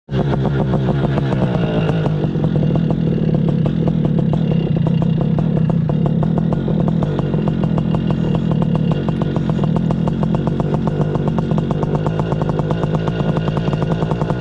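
Air Conception Nitro 200 two-stroke paramotor engine running steadily at a constant speed, settling after a slight change in revs in the first couple of seconds.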